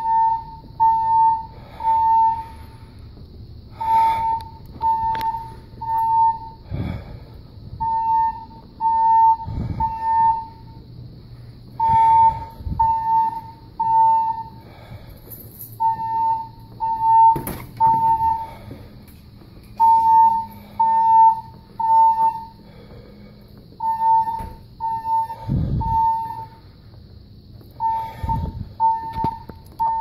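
Building alarm beeping in groups of three with a pause after each group, repeating every four seconds: the temporal-three evacuation pattern of a fire alarm. A few low thumps come in between.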